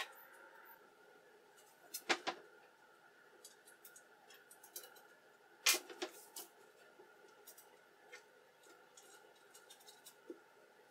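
Scattered knocks and clicks of an MDF spoilboard being handled and fitted against a CNC router's aluminium frame, over a faint steady hum. The two loudest knocks come about two seconds in and just before six seconds.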